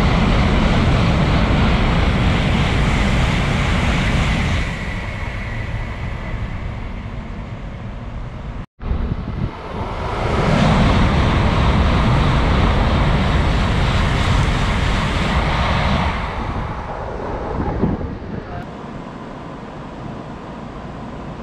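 Tokaido Shinkansen trains passing through the station at high speed: a loud rushing roar that holds for a few seconds and then drops. After a sudden break, a second pass rises to a roar for several seconds and fades away near the end.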